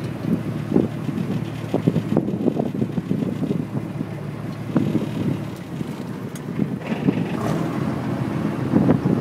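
Wind buffeting the microphone in a low, uneven rumble aboard a reed boat under sail.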